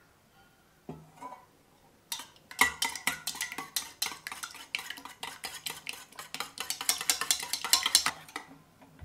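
Metal spoon beating raw egg with spices in a stainless steel bowl, clinking rapidly against the sides at several strokes a second for about six seconds. A single knock comes about a second in.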